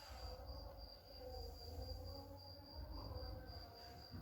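Quiet background with a faint, steady high-pitched tone throughout, over a low rumble and a faint wavering murmur.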